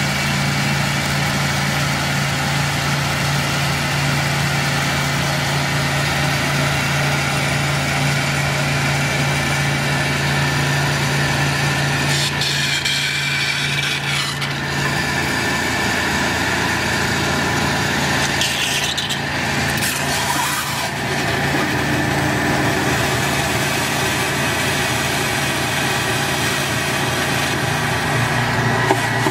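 Steady drone of the engine-driven pressure washer and vacuum equipment. About halfway through come two spells of rushing, hissing suction as the vacuum wand draws the last meltwater out of the runway light canister.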